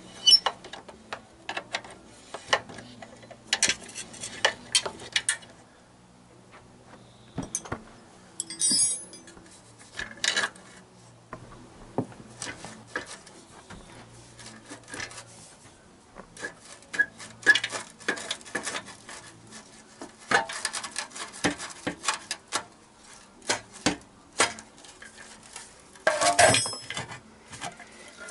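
Metal clinks and knocks of spanners on the exhaust hanger bolt, then the clanking of a rusty steel exhaust silencer being twisted and pulled off a Honda CBR1000F motorcycle, with a burst of rattling near the end.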